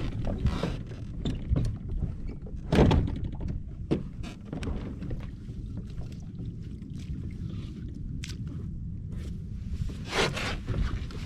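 Occasional knocks and thunks of gear against a fishing kayak's plastic hull over a steady low rumble. The loudest knocks come about three seconds in and near the end.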